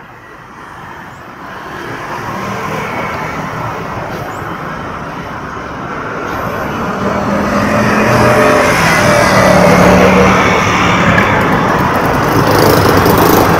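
Road traffic at a city junction, motor scooters and cars driving past. Their engine hum grows steadily louder as vehicles pass close.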